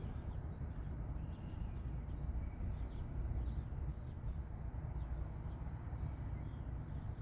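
Steady low outdoor background rumble with a few faint bird chirps.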